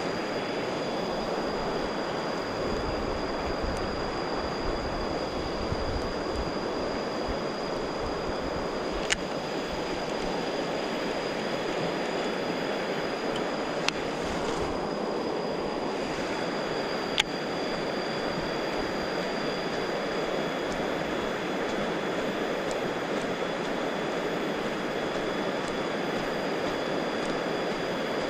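Steady rush of flowing water, with a thin high steady whine above it and three sharp clicks spread through.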